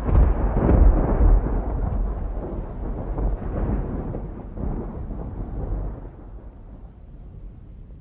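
Thunder sound effect: a long rolling rumble with some crackle, loudest in the first second or so, then dying away gradually over the next several seconds.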